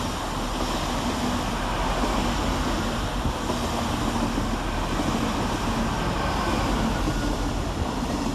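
Great Western Railway Class 800 train passing slowly through the station: a steady noise of wheels and running gear on the rails with a low hum under it.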